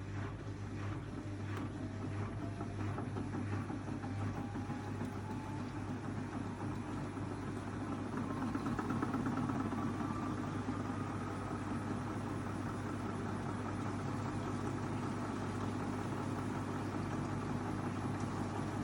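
AEG 8000 washing machine drum turning slowly with a regular knocking, about two knocks a second, that fades out as the drum speeds up. The motor whine rises in pitch and then settles into a steady spin. The knock comes only at low drum speed, an intermittent fault whose cause the owner has not found.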